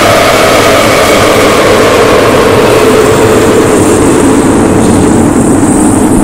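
Harsh noise music: a loud, dense wall of distorted static with droning bands that slowly slide lower in pitch. About halfway through, the top end thins out and a thin high whine comes in.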